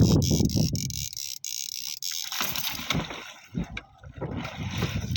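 Irregular splashing and sloshing water with rustling handling noise, as a hooked fish is wound in on the line.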